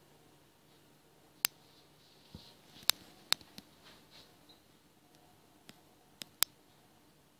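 About seven sharp, isolated clicks at irregular intervals over quiet room tone.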